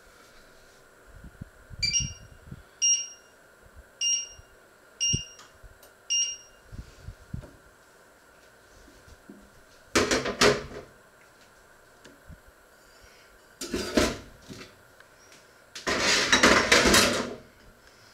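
An electric glass-ceramic hob's touch controls beep five times, about once a second, as they are pressed to switch the cooking zones on. Then come three bursts of clattering and scraping as stainless steel pots and lids are moved on the hob, the last and loudest lasting over a second.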